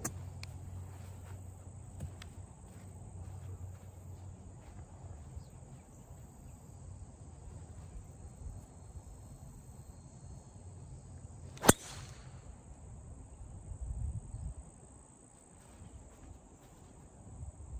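A single sharp crack of a driver striking a golf ball off the tee, about twelve seconds in. A steady high drone of insects runs underneath.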